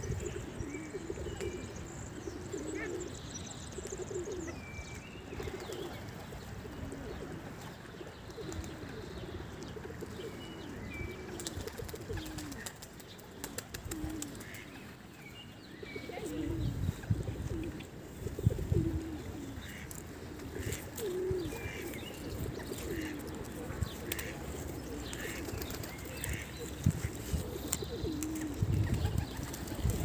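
Doves cooing over and over in low, rolling phrases, with small birds chirping now and then. A low rumbling noise comes in from about halfway through.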